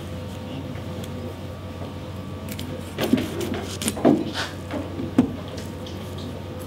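A kitchen knife cutting through the tail of a Japanese sea bream (tai) on a wooden cutting board: a few short knocks and scrapes in the middle, the last one sharp, over a steady low hum. The tail is being cut off to expose the spinal cord for ikejime nerve-rod insertion.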